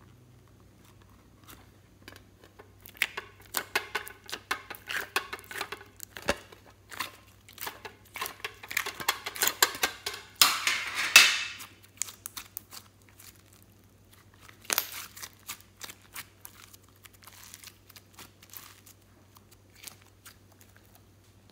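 Slime being squeezed and peeled out of a flexible plastic mould: rapid wet crackling and clicking, with a louder tearing rush about ten seconds in, then scattered smaller clicks and pops.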